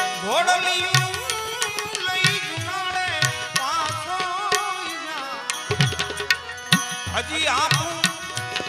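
Bhajan sung live by a male voice with wavering, ornamented runs, over a steady harmonium and regular tabla strokes.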